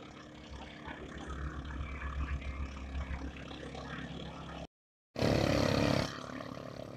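Racing boat engines running steadily. The sound drops out completely for half a second about two-thirds of the way in, then comes back with a loud engine burst lasting about a second before settling again.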